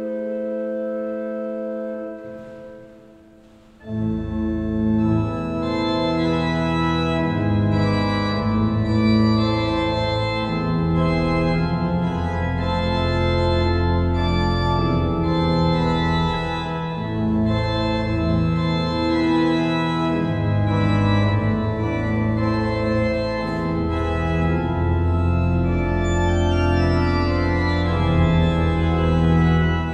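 Cathedral pipe organ playing: a held chord releases about two seconds in and dies away in the long reverberation of the building. About four seconds in, the full organ comes in loudly with deep pedal bass notes under moving sustained chords.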